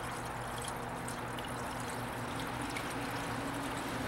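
Premixed 50/50 antifreeze coolant pouring steadily from a gallon jug through a plastic funnel into the radiator of a Cummins diesel, refilling a drained cooling system. A faint steady low hum runs underneath.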